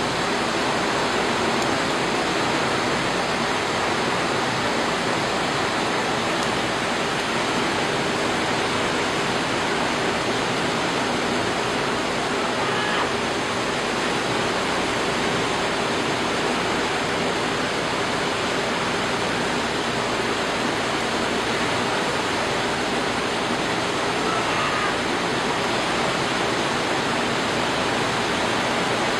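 Steady rushing of rough sea water, an even, unbroken noise with no separate wave crashes.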